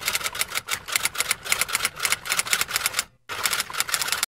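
Typing sound effect accompanying a text caption typed onto the screen: rapid, closely spaced key clicks. They break off briefly about three seconds in, resume, and stop suddenly just before the end as the caption finishes.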